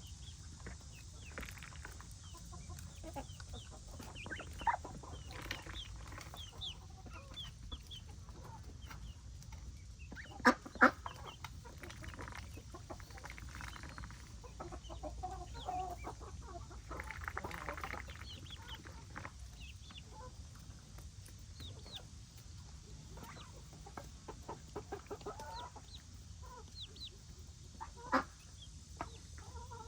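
Chickens clucking, a steady scatter of short calls from several birds, with two sharp, louder sounds about ten seconds in and another near the end.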